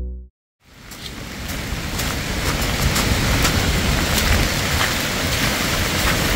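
Piano music cuts off just after the start. After a brief silence, heavy rain fades in: a steady hiss with many sharp ticks of drops striking close by.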